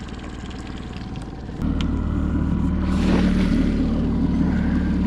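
Small boat's motor starts running about a second and a half in and holds a steady low hum, with a brief rush of splashing water around three seconds in.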